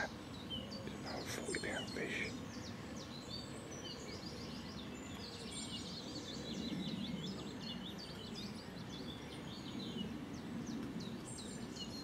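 Small songbirds chirping and trilling, several overlapping calls throughout, over a steady low background rumble.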